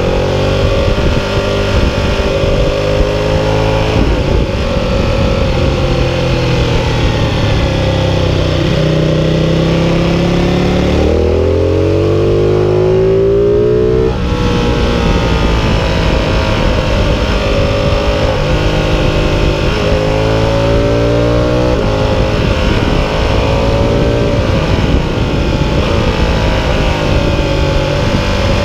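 Ducati 1299 Panigale's V-twin engine heard from onboard at speed on a race track, its pitch climbing in rising sweeps as it accelerates, cut off by sudden drops at gear changes, and falling away about eight seconds in as it slows for a corner. A steady rush of wind noise runs underneath.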